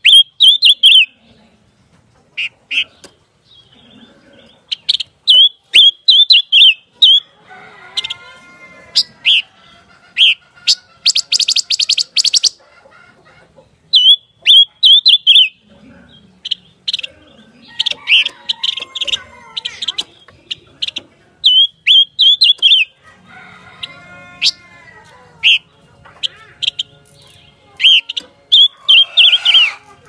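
Silver-eared mesias calling: runs of three to six short, high chip notes again and again. At three points lower, drawn-out arching calls come in, and about a third of the way in there is one fast, dry rattle.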